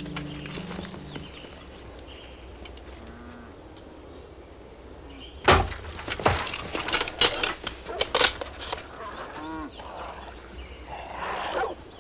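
Background music fading out, then a quiet stretch broken about five and a half seconds in by a sudden loud crash as soldiers storm a hut, followed by a flurry of sharp knocks and clatter.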